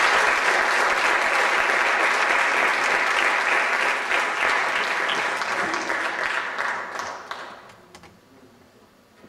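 Audience applauding loudly, dying away after about seven seconds.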